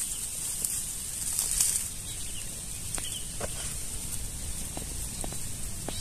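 Leafy shrub branches rustling as they are handled, with a louder rustle about a second and a half in and a few light snaps later on, over a steady high hiss and a low rumble of wind.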